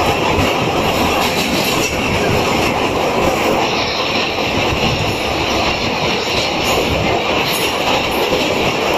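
Janmabhoomi Express passenger train running over a steel truss rail bridge, heard from inside the moving coach: a steady rumble of the wheels on the bridge rails.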